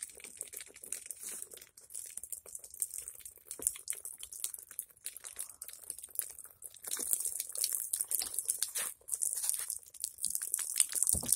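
A dented, cracked plastic water bottle crinkling and crackling as it is gripped and handled close to the microphone. It makes irregular runs of small crackles, thickest from about seven to nine seconds in and again near the end.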